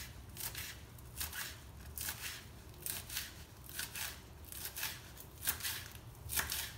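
Kitchen knife finely slicing a small bunch of red amaranth (cheera) leaves on a wooden cutting board, in short, quick cuts at about two a second, a little uneven.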